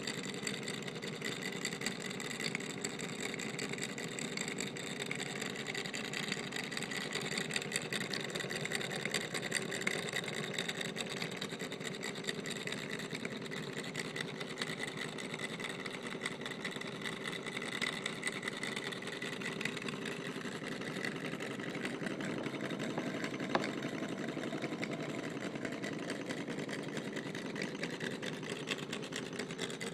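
Model Stirling engine running fast, a steady rapid clatter from its piston and spinning flywheels, driving a belt-driven Wilesco model hacksaw that saws through a toothpick. One sharp click stands out about three-quarters of the way through.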